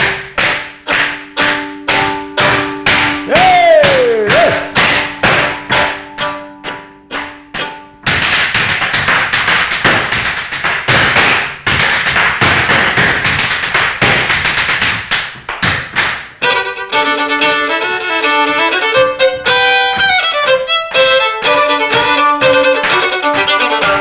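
Irish dance hard shoes beating quick, sharp taps on a hard studio floor to a live fiddle tune. For the first stretch the taps come about three a second over held fiddle notes. They then grow dense, and near the end the fiddle's melody comes to the fore.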